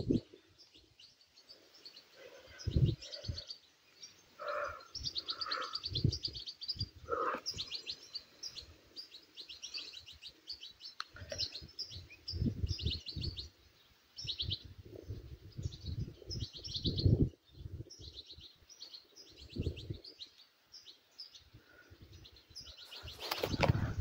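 Small birds chirping in rapid repeated trills over open farmland, with a few lower calls about five seconds in. Irregular gusts of wind buffet the microphone, the loudest moments near three, seventeen and twenty-three seconds in.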